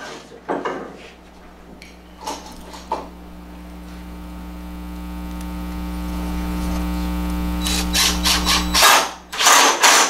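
Cordless drill driving a number 8 Robertson wood screw into a wooden bracket: the motor hums steadily for about eight seconds, growing louder as the screw pulls in, then stops. A few clicks come before it, and a run of knocks and clunks at the end.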